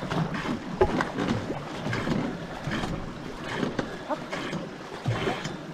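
Paddling in a two-person racing canoe: repeated paddle strokes catching and pulling through the water, with splashing and water rushing along the hull.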